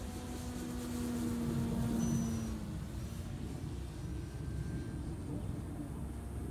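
Electric radio-controlled scale Percival Mew Gull, its Rimfire 1.60 brushless motor and propeller, flying past: a steady hum that grows to its loudest about two seconds in and fades by about three seconds, over a steady low rumble.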